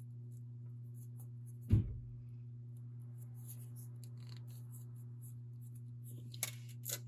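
Faint ticks and scratches of glass seed beads and thin beading wire being handled as beads are strung one at a time, over a steady low hum. One louder thump comes a little under two seconds in, and a few sharper clicks near the end.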